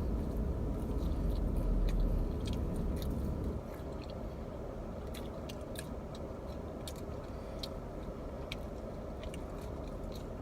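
Chewing and biting into pizza, with scattered small mouth clicks, over a steady low rumble that drops away about three and a half seconds in.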